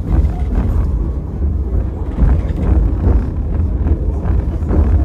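White Pass & Yukon Route narrow-gauge passenger train running, heard from inside the carriage: a steady low rumble of wheels on the track.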